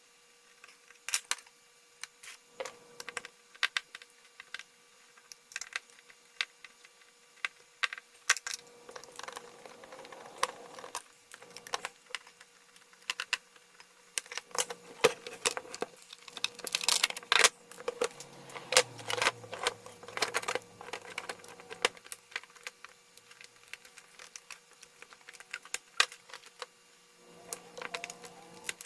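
Irregular clicks, taps and light knocks of small hard parts being handled on a workbench, as a jump starter's plastic housing and circuit board are worked on; busiest around the middle.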